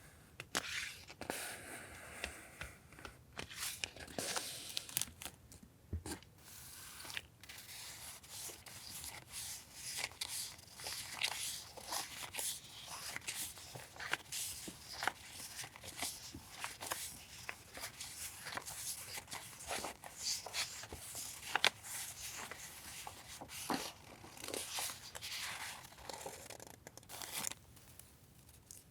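Paper and plastic stationery packaging being handled and unwrapped by hand: irregular crinkling and rustling with many small crackles and taps.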